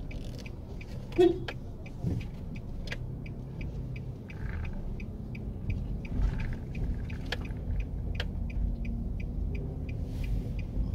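Car engine running low with road rumble, heard from inside the car as it rolls slowly, with a steady ticking at about three ticks a second. A short loud tone sounds once about a second in.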